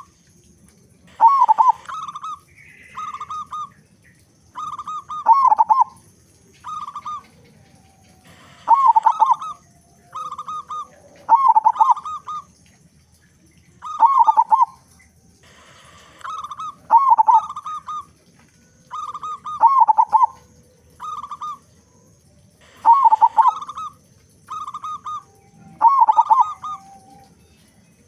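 Zebra dove (perkutut) cooing loudly: groups of several quick, bubbling coos repeated about every three seconds. Faint chirps of other small birds sound behind it.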